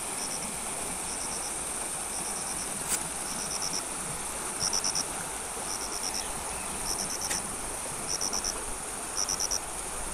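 Insects chirping in short groups of three or four quick pulses, about one group a second, over a steady high buzz and an even background hiss.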